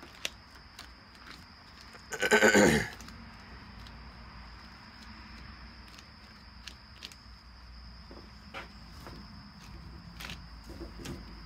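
Gloved hands working fiberglass casting tape around a metal pipe joint, with small scattered clicks and crinkles, under a steady high insect trill. About two seconds in, a loud wavering animal call lasting under a second.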